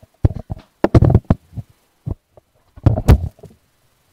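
Handling noise: a run of loud, irregular dull thumps and knocks, bunched in the first second and a half, one alone about two seconds in, and another bunch around three seconds.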